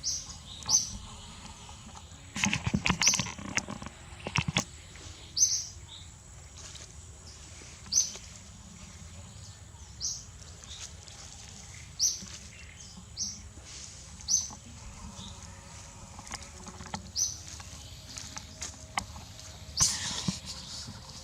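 A bird calling with a short high chirp that repeats about every two seconds, over a cluster of sharp clicks and rustling in the first few seconds and again near the end.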